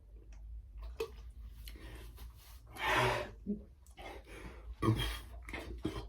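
A person breathing hard and gasping from chugging carbonated water, with two loud breaths about three and five seconds in and small clicks between them.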